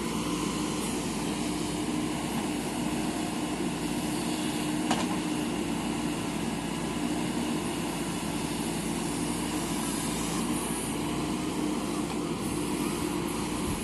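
JCB backhoe loader's diesel engine running steadily, with a single knock about five seconds in.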